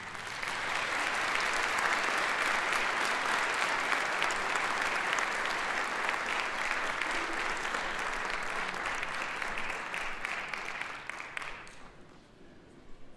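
Concert hall audience applauding, dying away near the end.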